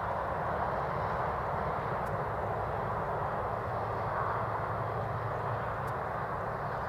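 Boeing 747-400 jumbo jet's four turbofan engines making a steady, even noise as it rolls down the runway just after landing.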